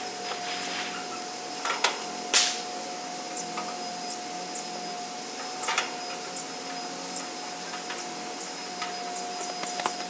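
Steady background hum with a few sharp clicks and knocks, the loudest about two and a half seconds in and another near six seconds, from handling screws while reassembling the sheet-metal cabinet of an outdoor air-conditioner condenser.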